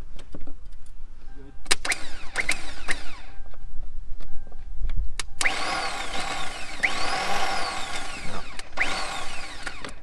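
The starter motor of a 2003 Mercury Grand Marquis, jumped at the starter with a screwdriver, spinning up and winding down with a snap at each contact: a few short spins, then three longer ones. It whirs freely without turning the engine, because the Bendix drive is not pushing out to engage, which points to a failed starter.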